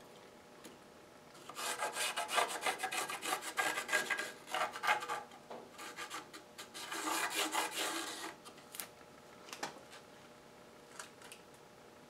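Pencil tracing around a template onto a rough, weathered wooden board, scratching in quick rasping strokes in two spells, the second shorter, with a few light taps afterwards.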